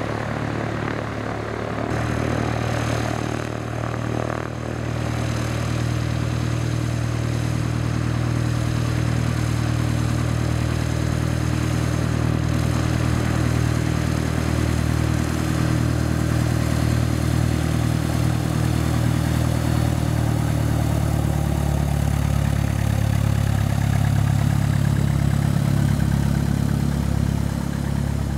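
Single-engine light propeller plane's piston engine running steadily at low taxi power, a low drone with propeller noise, growing somewhat fuller about two-thirds of the way through.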